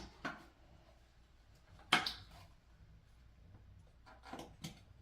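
One sharp plastic click about two seconds in, with a few fainter handling clicks near the end: pressure washer parts being snapped together by hand during assembly.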